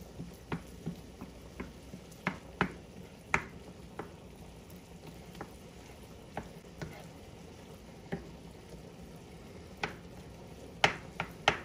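Wooden spatula scraping and tapping against a nonstick skillet as it stirs and breaks up ground turkey sausage, over a faint steady sizzle of the meat slowly browning. The strokes come at irregular intervals, with a few sharper knocks near the end.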